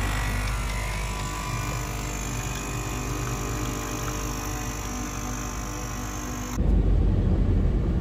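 Capsule espresso machine running its pump while it brews coffee into a cup: a steady hum with a noisy hiss. It stops abruptly after about six and a half seconds, and a car's low road rumble heard from inside the cabin takes over.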